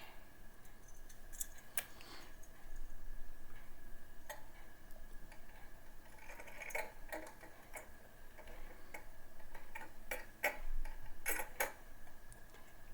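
Scattered light clicks and taps of a Noctua CPU cooler and its metal mounting screws being set down and lined up on the motherboard's mounting posts, the clicks coming in small clusters at uneven intervals.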